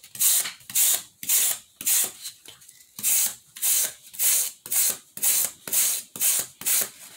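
A small stiff brush scrubbed back and forth across bare white craft board with its backing peeled off, about two scratchy strokes a second, with a brief pause a little before halfway.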